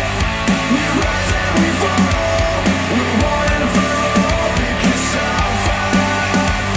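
Rock music with a steady drum beat and bass, played back through KEF Q350 bookshelf speakers.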